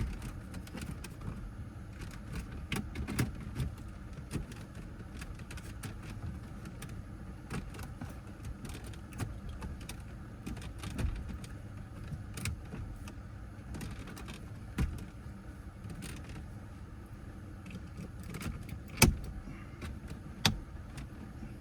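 Scattered clicks, knocks and rattles of hands and tools working on the car's interior and parts, with a sharp knock about 19 seconds in, over a steady low hum.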